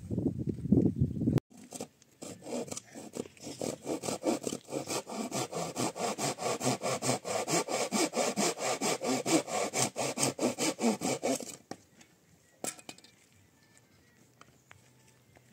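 A tool worked back and forth in fast, even sawing strokes, about four or five a second, that stop about three-quarters of the way in. They follow a short, low noise that cuts off abruptly.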